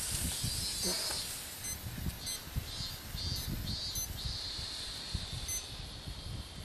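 A smoke cartridge hissing steadily as it jets smoke into a ground nest of black wasps to stun them, with a high whine pulsing on and off over the hiss and low knocks of handling among branches.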